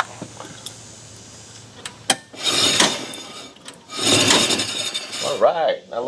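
EZGO electric golf cart's new rear hub and brake drum turning under power. A click, then two noisy spells of about a second each, around two and a half and four seconds in.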